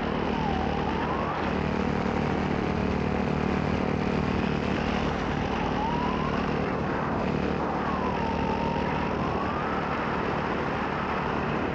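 EOS Quattro 280 cc four-stroke paramotor engine, belt-driven to a 140 cm propeller, running steadily under power in flight. It is a constant, even drone, with a faint higher whine that dips and rises again a few times.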